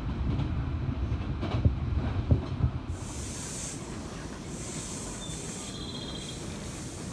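Passenger train running: a low rumble with clacks of the wheels over the rail joints. After about three seconds it drops to a quieter steady hiss with a brief high-pitched squeal.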